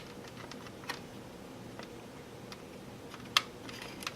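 Small, sharp clicks and taps of plastic model-kit parts being handled while a tiny brake reservoir is fitted onto the car body, a few scattered ones with the loudest a little past three seconds in.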